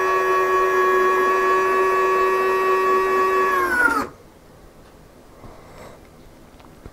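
Tail-wheel retract unit's motor running with a steady whine as it lowers the tail wheel. The pitch drops briefly as it reaches the end of its travel, and it stops about four seconds in.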